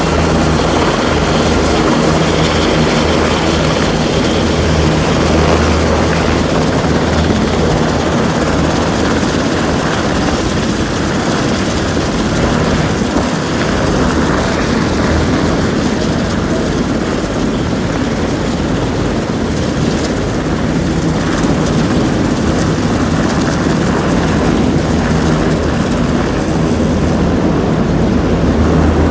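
Sikorsky MH-60 Seahawk helicopter's rotor and twin turboshaft engines running steadily while it hovers with a sling load, heard as a continuous loud noise with a low hum.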